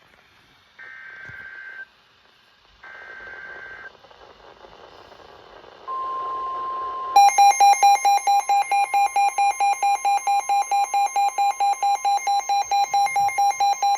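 Weather alert radio going off for a severe thunderstorm warning. Two short warbling data bursts of a SAME alert header come first, then about 6 seconds in the steady 1050 Hz warning alarm tone starts, joined a second later by the receiver's loud pulsing alarm beeps, about four a second.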